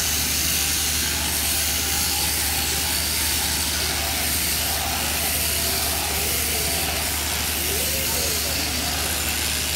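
Machine sheep-shearing handpiece on an overhead-drive down tube, running steadily as it cuts through the fleece: a continuous hiss with a steady low hum underneath.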